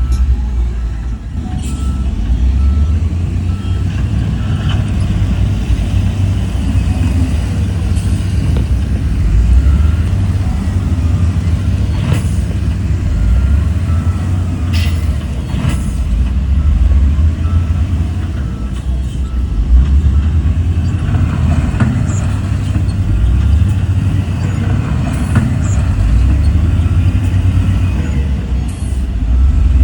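Heavy diesel earth-moving machinery running with a deep, steady engine rumble. Several sharp metallic clanks and knocks fall through it, three of them close together about halfway through.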